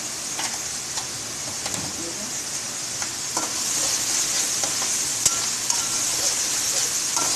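Chicken in tomato and spice masala sizzling in oil in an aluminium kadai, a steady high hiss that grows louder about halfway through as a slotted metal spatula starts stirring. The spatula scrapes and clicks against the pan, with one sharper knock about five seconds in.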